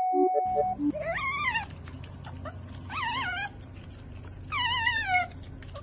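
Pet otter squeaking three times in high, wavering, whiny calls, each under a second long, while food is held out to it: begging.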